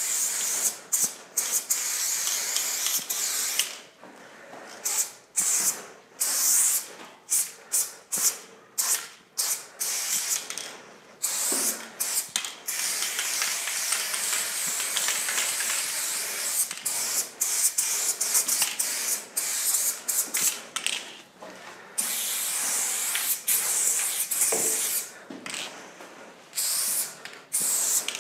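Aerosol spray-paint can hissing in many short bursts, each cut off sharply, with one long unbroken spray through the middle.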